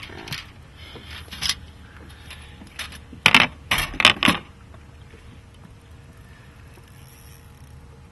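A fishing reel clicking in a few short rattling bursts, loudest about three to four seconds in, while a hooked trout is played beside the boat; a steady low hum sits underneath.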